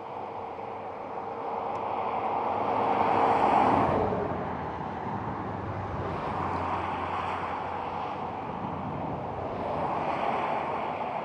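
Vehicles passing by. The first swells up to its loudest about three and a half seconds in, its tone dropping in pitch as it goes past, and a second swells up near the end.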